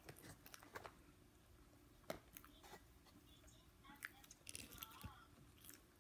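Faint chewing and crunching of fried chicken, with scattered light clicks and crackles as fingers pick at the food.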